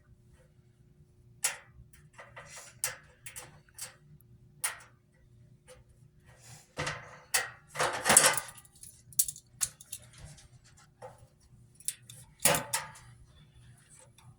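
Aircraft safety wire being twisted and pulled tight around a nut, with scattered light metallic clicks and scrapes; the loudest is a longer scraping rasp about eight seconds in.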